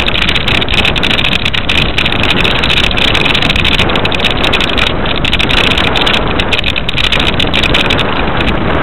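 Quest velomobile riding along a snow-covered road: a steady, loud rolling noise with wind on the microphone.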